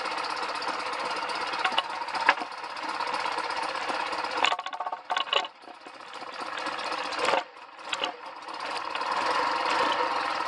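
A 1991 BMW R100GS Paris-Dakar's air-cooled flat-twin engine running on the stand, picked up close from a handlebar mount. It is mostly steady, with a few sharp clicks and two brief drops in level that swell back up.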